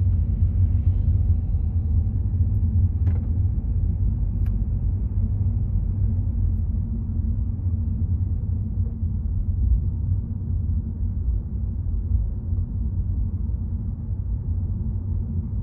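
Steady low rumble of a car driving along a road, with a faint click about three seconds in.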